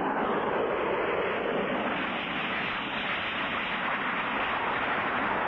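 Steady, even rushing drone of an airplane in flight, a cartoon sound effect with no distinct engine beat.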